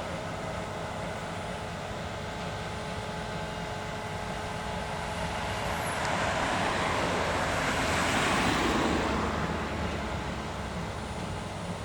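Heavy diesel farm machinery running steadily. The sound swells louder as a machine passes close, peaking about eight seconds in, then fades again.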